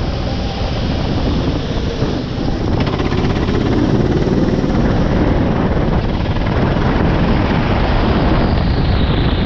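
Kart engine running at speed, loud and steady, mixed with rushing wind and spray noise on the microphone.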